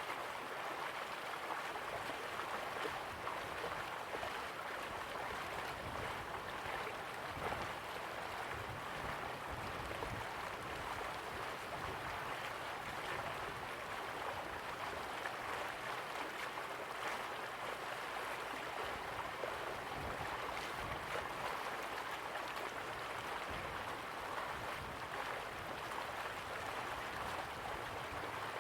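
River water flowing steadily, a continuous even rush with a light gurgle.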